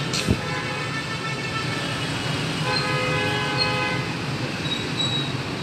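Steady street traffic noise, with a vehicle horn sounding for about a second and a half from a little under three seconds in. A short knock comes just after the start.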